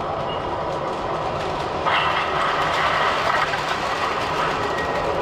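MTH O scale model subway train running on three-rail track, with a steady mechanical rumble of motor and wheels. It turns louder and higher-pitched for about a second and a half, starting about two seconds in.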